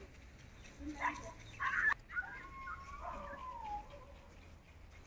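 A dog: two short yelps around one to two seconds in, then a drawn-out whine that glides up and falls away.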